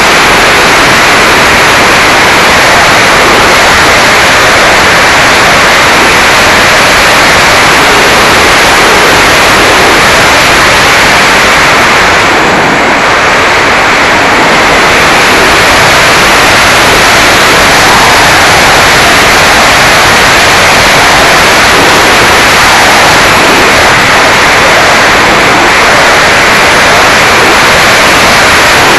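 Loud, steady rush of airflow over the microphone of a Mobius camera mounted on a Mini Talon RC plane in flight, easing slightly about halfway through.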